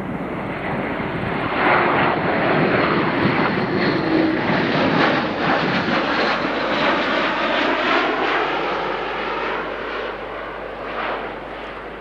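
Airbus A400M Atlas's four Europrop TP400 turboprop engines and propellers during a low flypast. The engine drone swells to its loudest a couple of seconds in, holds, then fades toward the end as the aircraft passes and climbs away.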